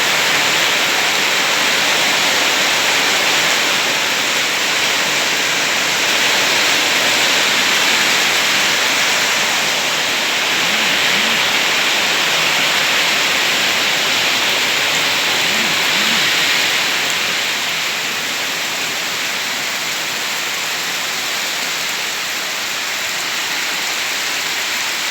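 Heavy rain falling, a loud, steady hiss that eases slightly a little over halfway through.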